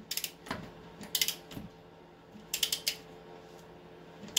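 Ratcheting torque wrench tightening a front axle hub nut: short bursts of rapid ratchet clicks, one burst for each back-swing of the handle, coming every second or so.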